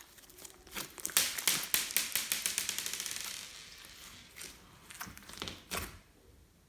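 Glossy slime being squished and poked by hand: a quick run of sticky clicks and pops about a second in that fades out over a couple of seconds, then a few single pops.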